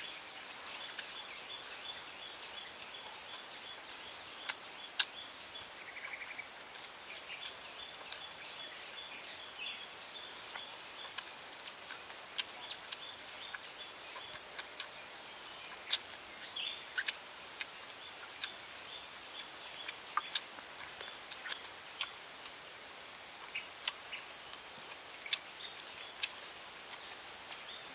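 Close-up chewing and lip-smacking from someone eating pork ribs by hand: sharp wet clicks, a few at first and then frequent through the second half. Under them is a steady outdoor hiss with short high bird chirps.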